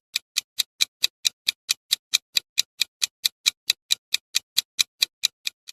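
Countdown-timer clock ticking: short, sharp ticks evenly spaced at about four and a half a second.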